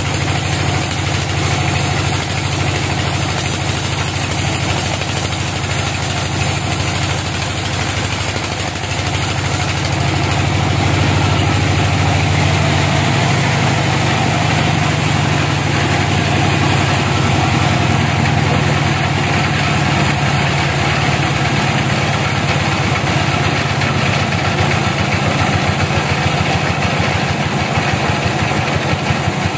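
Log band sawmill running, its blade cutting lengthwise through a teak log on the carriage: a steady low machine drone with the hiss of the cut over it. A rhythmic pulsing in the drone grows clearer near the end.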